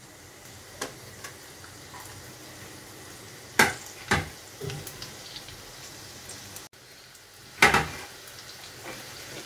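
Chopped garlic sizzling softly in hot oil in a non-stick pan, with a few short knocks of kitchen utensils, the loudest about three and a half and seven and a half seconds in.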